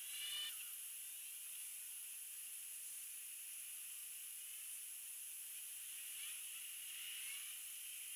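Steady hiss of heavy rain, with faint whines gliding up and down and a brief swell about half a second in.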